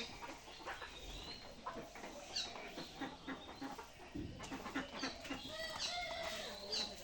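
Farmyard birds calling: a busy run of short, high chirps mixed with lower clucking calls.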